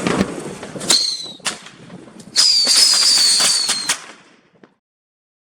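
Red Lantern 'Whistling Jack' fireworks going off: sharp pops and crackle, a short whistle falling in pitch about a second in, then a longer high whistle that slowly drops in pitch for about a second and a half before the sound dies away.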